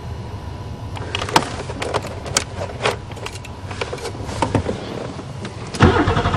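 Scattered clicks and light knocks from hands working on the car. Near the end, a louder mechanical sound with a fast, even pulse starts up.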